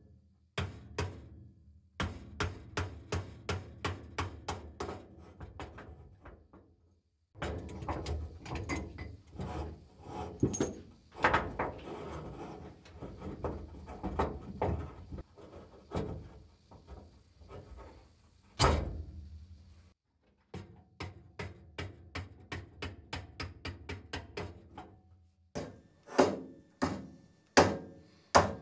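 Repeated hammer taps on a Porsche 911 steering shaft, driving it out to reach a seized, dust-filled shaft bearing: sharp knocks about two or three a second in several short bursts, with one heavier blow about two-thirds of the way through.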